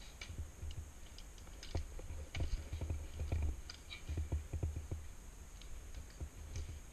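Irregular footsteps and thumps on a gritty floor, mixed with small sharp clicks and knocks of carried gear and the camera mount. The thumps bunch together in the middle and thin out toward the end.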